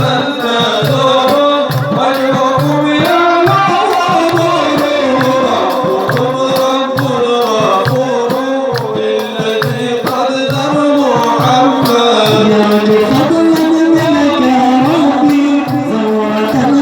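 Sufi inshad music: a wavering melodic line, likely voices, over a steady hand-drum beat of about two strokes a second.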